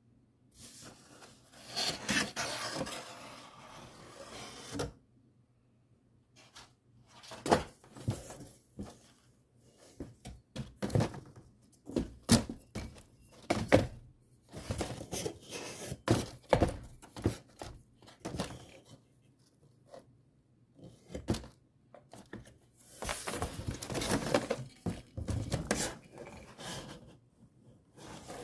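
Handling of a wine shipping box: cardboard and a molded pulp insert rustling and scraping, then a run of knocks and thunks as bottles are moved among the cardboard dividers, with more rustling near the end.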